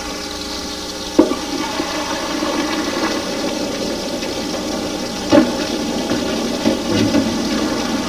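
A large steel pot of pasta and its boiling water tipped out into the sink to strain the pasta: a steady rush and splash of pouring water, with a metal clank about a second in and another about five seconds in.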